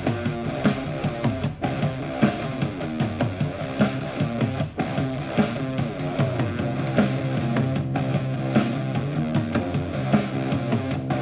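Alternative/punk rock track with guitars and a steady beat, played back through a small portable Bluetooth speaker.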